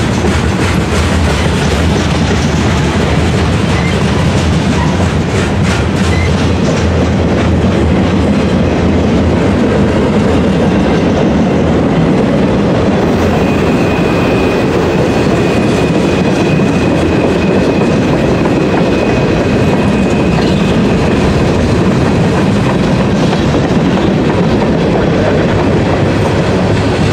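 Freight cars of a passing train, covered hoppers, tank cars and flatcars, rolling by with a steady rumble and clickety-clack of wheels over rail joints. About halfway through, a thin high-pitched wheel squeal joins in and holds for several seconds.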